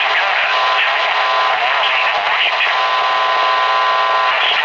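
A voice coming through a radio receiver, thin-sounding with steady static hiss.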